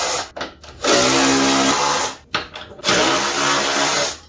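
Handheld power tool's motor running in three bursts of about a second each, holding a steady pitch.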